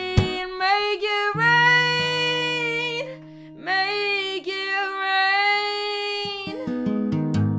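A woman sings long, held notes over a strummed acoustic guitar. Her voice stops about six and a half seconds in, and a last strummed chord rings out near the end.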